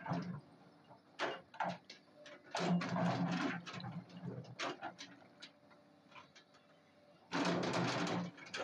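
Excavator bucket scraping and dragging through broken rock, with stones grinding and clattering in irregular bursts; the longest come about three seconds in and near the end.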